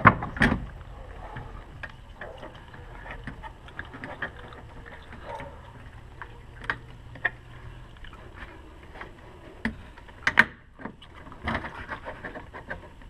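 Hollow plastic coolant reservoir tank knocking, clicking and scraping against the engine bay as it is worked into its mounting, with louder knocks at the start and around ten seconds in.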